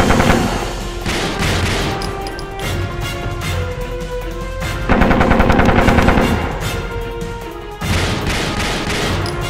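Bursts of rapid automatic gunfire, an added sound effect, over background music. The heaviest burst starts about five seconds in and lasts over a second, with another near the end.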